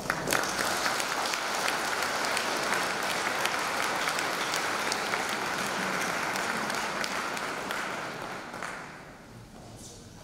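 Congregation applauding, the clapping starting at once and dying away about nine seconds in.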